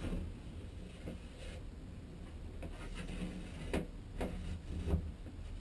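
Thin aluminum sheet being handled and flexed against a wooden trailer wall, giving soft rustling and a few short knocks, the clearest about four and five seconds in.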